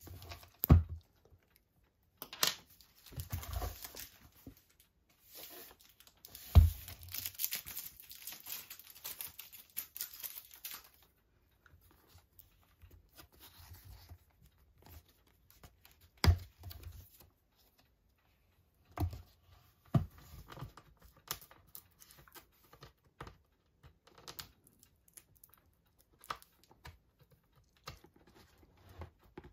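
Cardboard poster tube being opened: scissors cutting and paper tearing at its end, with a longer stretch of tearing about six seconds in, among scattered knocks and thumps as the tube is handled.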